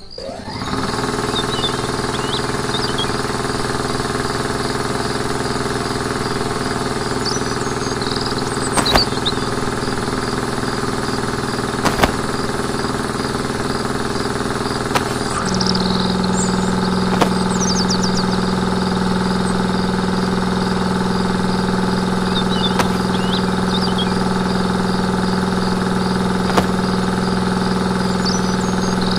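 A small motor starts up and runs with a steady engine-like hum, getting louder about halfway through. A few sharp clicks and faint bird chirps sound over it.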